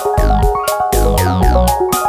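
Background electronic music with a steady beat of kick drum and cymbal-like strikes under synthesizer notes.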